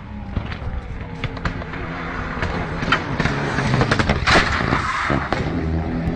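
Moving car and road noise with scattered knocks, and a loud crashing impact about four seconds in as a car comes down onto the road.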